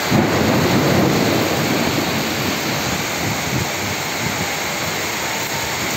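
Heavy rain and hail pouring down in a strong wind, a steady dense rush. A deeper low rumble swells up at the start and eases off after about two seconds.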